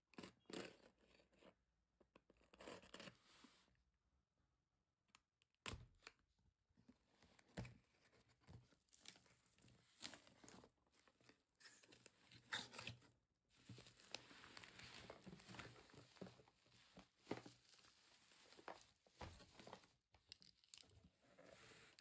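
Toy packaging being torn open and handled: quiet, irregular tearing and crinkling with scattered sharp clicks, coming in short bursts with brief pauses.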